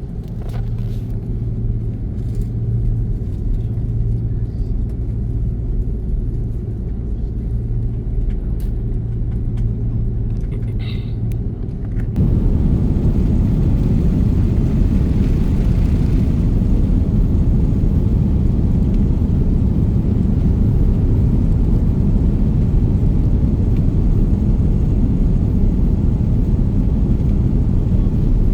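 Airliner's jet engines humming steadily with a low drone, then about twelve seconds in the sound jumps to a much louder, steady rumble as takeoff power is applied for the takeoff run.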